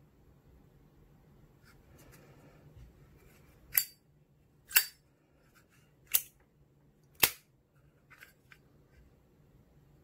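Zippo Black Crackle windproof lighter's hinged metal lid flipped open and snapped shut by hand. Four loud, sharp metallic clicks come about a second apart in the middle, with a few fainter clicks before and after.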